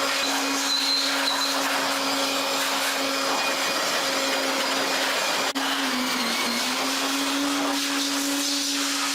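A small high-speed electric motor running steadily with a strong hiss, its pitch sagging briefly about six seconds in.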